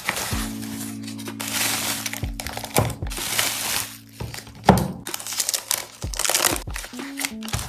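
Parcel packaging being handled and unwrapped, crinkling and rustling in repeated bursts with a few sharp crackles, over soft, steady background music.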